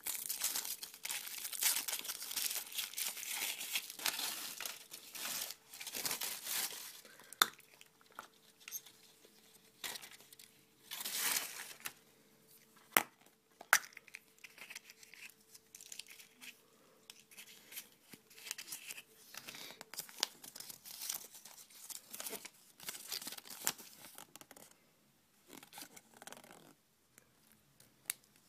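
Packaging being crinkled and torn by hand, a dense rustle with scattered sharp clicks, busiest in the first several seconds and again around eleven seconds in.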